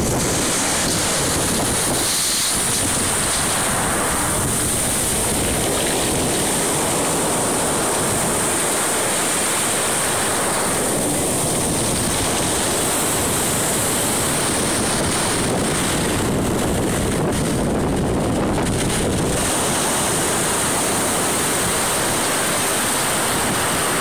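Storm surf: heavy waves breaking and foaming up the shore in a steady, continuous wash. Wind buffets the phone's microphone.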